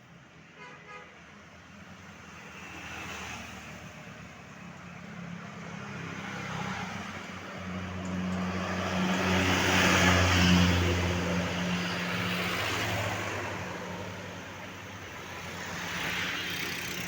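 Tour bus driving past. Its engine drone and road noise build to their loudest about ten seconds in, then fade. Smaller swells of passing-vehicle noise come about three seconds in and near the end.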